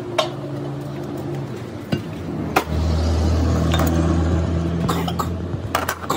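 Metal clinks and knocks, joined about three seconds in by the low steady hum of a running motor.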